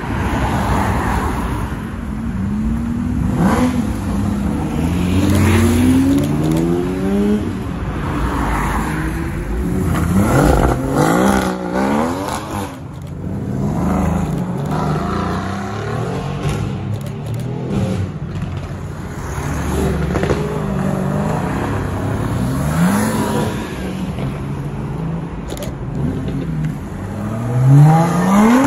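A string of performance cars pulling away one after another, their engines revving up with repeated rising pitch as each accelerates past. Among them are a Porsche 911 GT3 Touring, a Mercedes-AMG GT R and a Lotus Exige. The loudest, sharpest rev comes just before the end.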